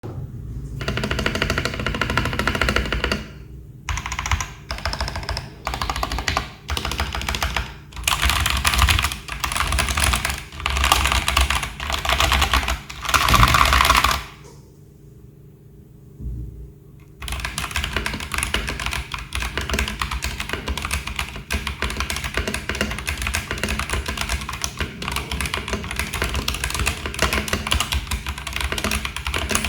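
Typing on a mechanical keyboard with stock, factory-lubed AJAZZ x Huano Kiwi tactile switches: runs of keystrokes in bursts, a pause of about two seconds near the middle, then steady fast typing.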